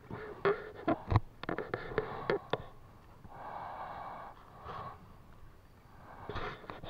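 Wet mesh fish trap being shaken and handled over a stream: a quick run of sharp taps and rattles, then water splashing and running out of the net about three seconds in.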